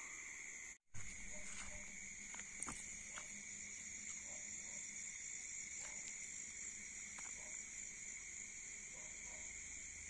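Steady night chorus of insects such as crickets, two continuous high trills, with short faint chirps scattered through it. The sound drops out for a moment just before a second in.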